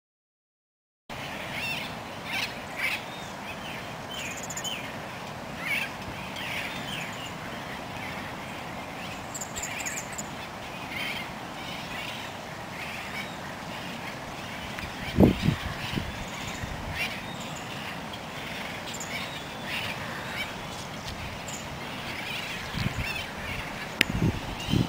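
Small birds chirping over a steady outdoor hiss, with one loud low thump about fifteen seconds in and a few softer low knocks near the end.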